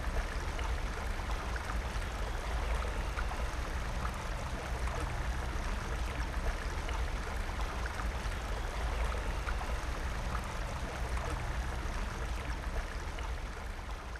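Steady rushing noise with a heavy low rumble and a few faint clicks, beginning to fade near the end.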